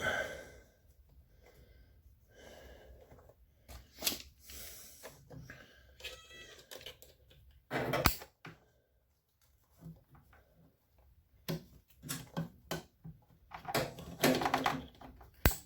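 Clicks, knocks and rubbing of parts being handled and pushed into place while reassembling an LG washing machine, a part being forced on that will not go on easily. A short squeak comes about six seconds in, and sharp knocks come about eight seconds in and near the end.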